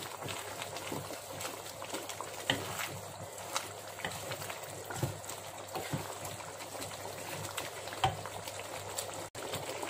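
Spiced mutton curry gravy simmering in a pot, a steady bubbling with a few soft pops now and then.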